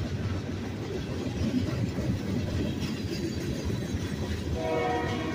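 Union Pacific freight cars rolling past close by: a steady rumble of steel wheels on the rails. Near the end a train horn comes in, a steady chord of several tones.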